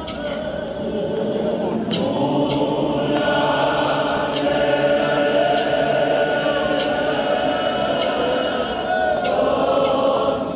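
Many voices singing together unaccompanied, a congregation choir holding long notes, swelling in about two seconds in, with a few sharp clicks or knocks here and there.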